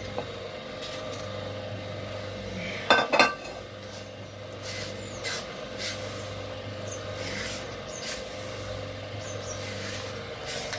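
Peppercorns and a white flower being ground to a wet paste with a stone roller on a flat grinding stone: rough rubbing strokes of stone on stone, with a loud double knock about three seconds in.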